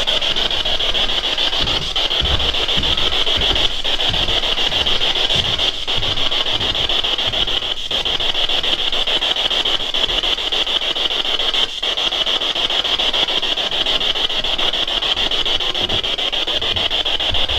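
SB7 spirit box sweeping through radio stations: a steady, loud hiss of static with a fast flicker in it, broken by a few brief dropouts.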